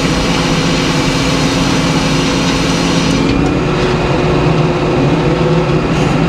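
Large circular sawmill blade sawing white pine, the mill's engine running steadily under it. About three seconds in, the high cutting hiss falls away as the blade comes out of the cut and runs on.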